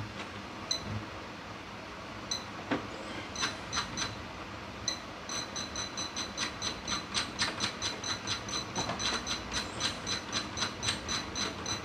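Bench DC power supply's control knob being turned step by step to set the output voltage, each step giving a short high beep with a click. The beeps come singly at first, then in a quick, fairly even run of several a second from about five seconds in.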